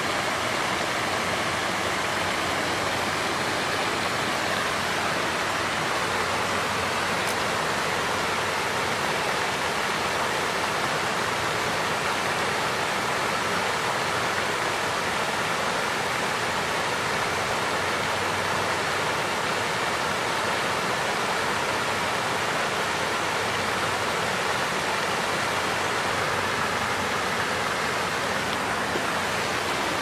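A waterfall: the steady, even rush of falling water, with no change in level.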